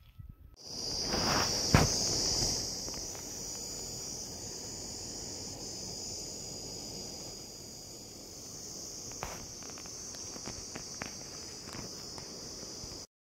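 Steady, high-pitched insect chorus with a low, even rushing noise beneath it. A sharp knock about two seconds in is the loudest moment.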